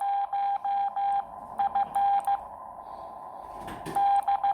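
Morse code sidetone from a Xiegu X6100 transceiver in CW training mode, keyed with a Bencher BY-1 paddle, sending the call sign M0FXB: one steady beep in a run of dashes, then dot-dot-dash-dot (F), a pause of over a second, and dash-dot-dot-dash (X) near the end.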